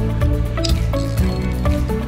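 Background music: a melody of short pitched notes over a steady low bass, with a beat about twice a second.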